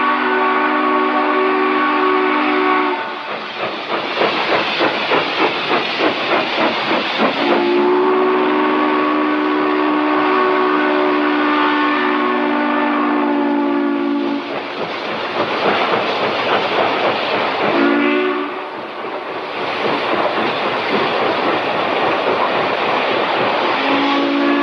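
Train whistle on the Northern Lights Express sounding a chord of several tones in long blasts: one ending about 3 s in, a long one of about 7 s, a short toot near 18 s, and another starting near the end. Between blasts there is a steady rushing train noise, with a fast rhythmic clatter about 3 to 7 s in.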